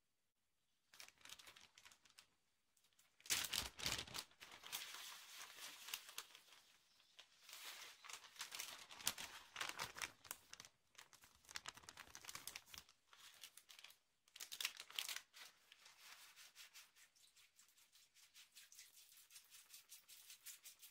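Thin plastic bag crinkling and rustling as it is handled, in uneven crackly bursts, loudest about three seconds in.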